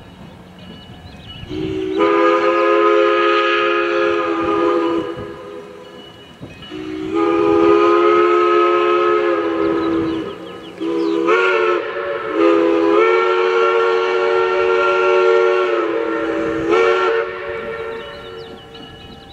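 Diesel locomotive's multi-chime air horn sounding the grade-crossing signal: two long blasts, a short one and a final long one, over the rumble of the train.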